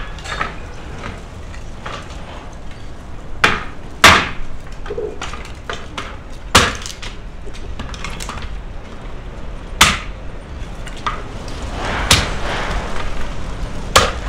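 Hatchet splitting thin wooden boards into kindling: about six sharp chops at irregular intervals of a few seconds, with lighter knocks of wood between them.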